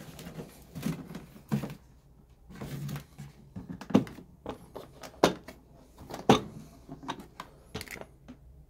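Clear plastic clip-lid storage box handled and opened: an irregular run of sharp plastic clicks and knocks as the snap latches on the lid are undone and the lid is lifted off.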